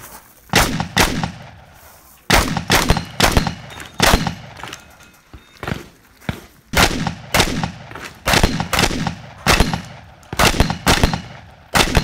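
Competition shotgun fired again and again in fast bursts of two to four shots with short pauses between, each shot sharp and loud with a brief echo trailing off.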